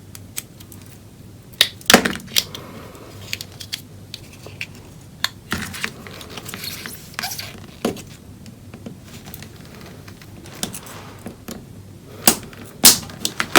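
Metal spudger prying apart a glued plastic USB transmitter housing: irregular sharp clicks and taps of metal on plastic, loudest about two seconds in and in a quick cluster near the end.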